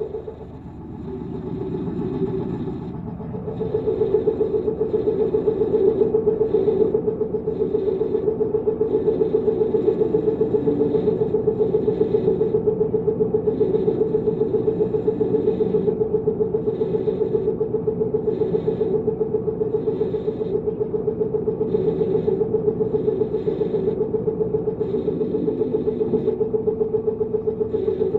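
Tokyu city bus engine running at a steady, even pitch, a little quieter for the first few seconds.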